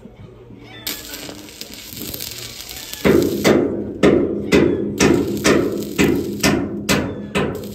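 Hammer blows on metal, about two a second, beginning about three seconds in after a steady hiss, with the spacing tightening a little near the end.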